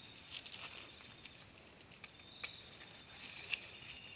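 Insects trilling steadily at a high pitch, a continuous chorus, with three or four brief clicks over it.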